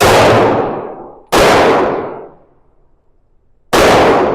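Three shots from a SIG P365 X Macro 9mm pistol, the second about a second and a half after the first and the third about two and a half seconds later, each trailing off in a long echo.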